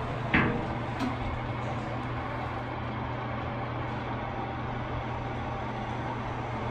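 Inside a Fujitec passenger elevator car as it sets off upward: a steady low hum. A sharp thump comes about a third of a second in, and a smaller click about a second in.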